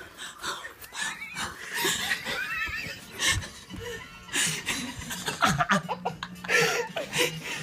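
Several people laughing and letting out high-pitched squeals and shrieks in short bursts, without clear words.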